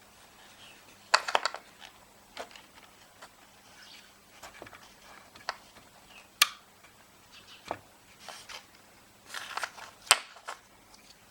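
Sharp clicks and handling noises from the knobs of a White's Surfmaster PI metal detector, with two loud clicks about six and ten seconds in; no steady tone from the detector is heard.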